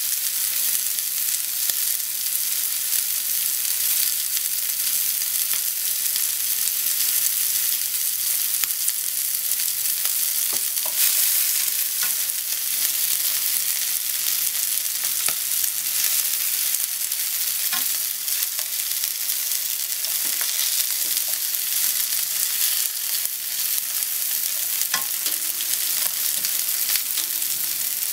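Pork cutlets and sliced onion sizzling in a frying pan with a steady high hiss. From about the middle on, cooking chopsticks stir the onions, adding scattered light taps against the pan.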